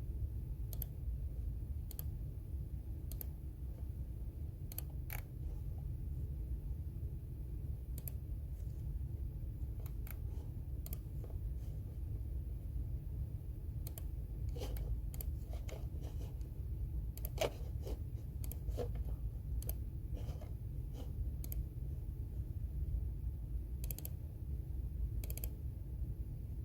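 Computer keyboard keys clicking in short, irregular spurts, over a steady low background hum.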